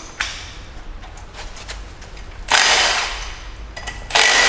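Power tool, likely an impact wrench, hammering at the engine's pulley bolt to unscrew it, in two bursts: one of about a second roughly halfway through and a shorter one near the end, with light tool clatter between.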